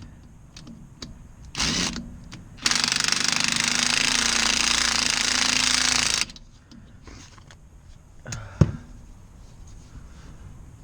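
Cordless impact driver hammering a fastener tight on the replacement ECM blower motor assembly: a short burst, then a steady run of about three and a half seconds that stops abruptly. A single sharp knock follows near the end.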